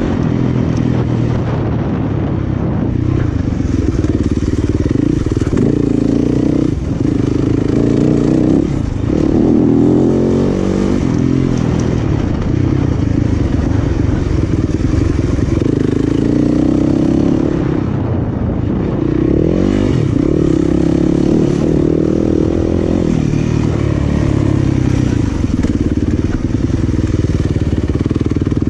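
Dirt bike engine being ridden hard off-road, its revs rising and falling again and again as the rider works the throttle.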